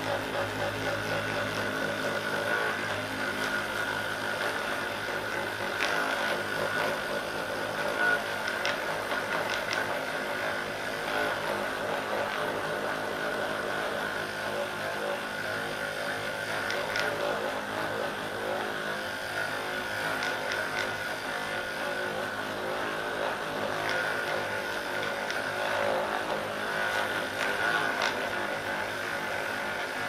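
Hypervolt percussion massage gun running steadily, its head pressed into the muscles of the back.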